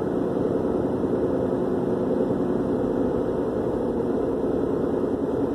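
A steady low mechanical drone with a faint hiss over it, with no breaks or distinct events.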